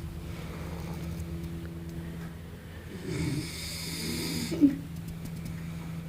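A person snoring: one long snore begins about three seconds in and ends in a short, loud catch, over a steady low hum.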